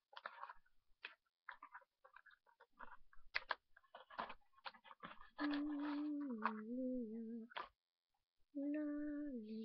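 Packaging being handled and opened, many short clicks and rustles, then a person humming a few held notes that step down in pitch, in two phrases.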